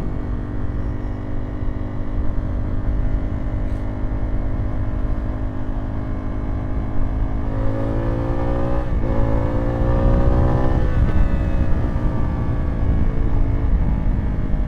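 Zontes T2 350 motorcycle's engine running under way over low wind and road rumble. About seven and a half seconds in it revs up, dips sharply near nine seconds as at a gear change, climbs again, then eases off around eleven seconds.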